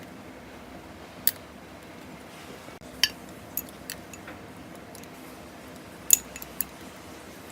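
Eating utensils clicking against tableware in a handful of sharp, separate taps, about six in all, the loudest about six seconds in. A faint steady hum lies underneath.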